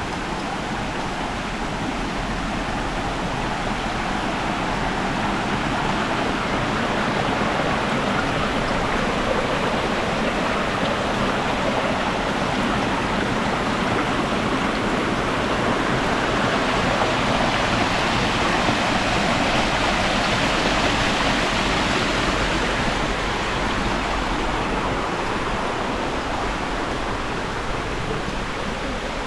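Rushing water from a mountain stream or waterfall, a steady rush that swells louder and brighter midway and eases off toward the end.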